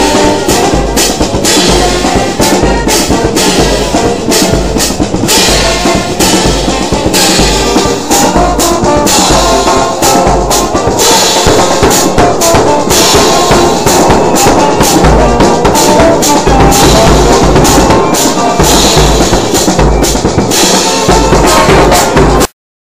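Ghanaian brass band playing borborbor: massed horns over a steady drum beat, cutting off suddenly near the end.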